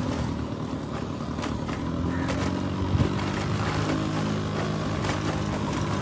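Motorcycle engine running steadily while riding, with a single knock about three seconds in.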